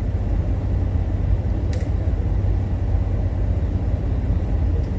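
Steady low rumble of a car idling, heard from inside the cabin, with a single short click about two seconds in.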